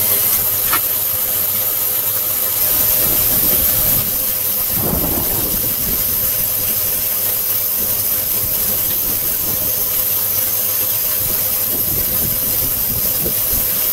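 Loud, steady hiss with a faint steady hum beneath it; it cuts off abruptly at the end.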